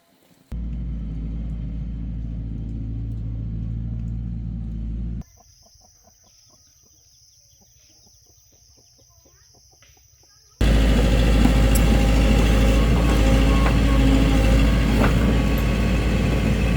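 A heavy diesel engine of the earthmoving machinery running steadily, cut off abruptly. A quiet stretch of chickens clucking follows, then the engine sound returns louder and rougher.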